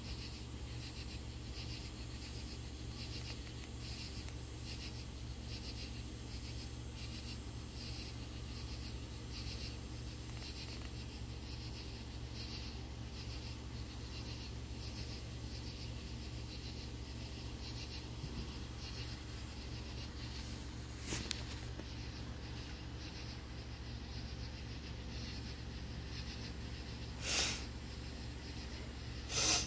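Night insects calling in a steady pulsing rhythm, about three high-pitched pulses every two seconds, over a constant low hum. Three short bursts of noise break in near the end.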